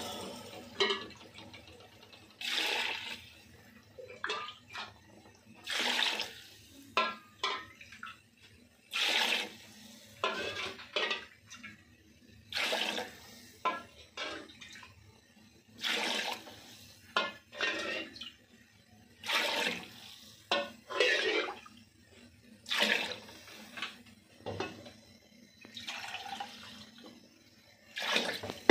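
Water splashing into a metal cooking pot of mutton in a string of short pours, each under a second, with gaps of one to three seconds between them.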